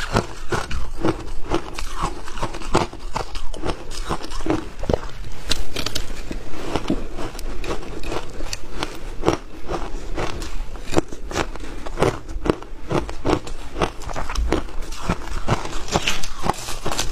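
Shaved ice crunching as it is chewed close to the microphone, many sharp crunches a few a second, with a metal spoon scooping ice from the bowl.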